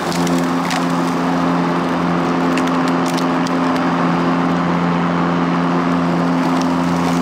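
Hart 21-inch 40-volt brushless battery push mower running while cutting tall grass: a steady electric motor and blade hum over a rushing chop of grass, with a few short ticks of debris hitting the mower.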